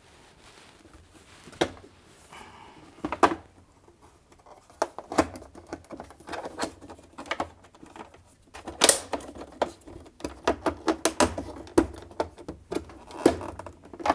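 Plastic housing panels of a Husqvarna Viking Designer SE sewing machine being pulled and pried loose by hand: irregular clicks, snaps and scrapes of plastic, with a short squeak early on, coming thicker in the second half.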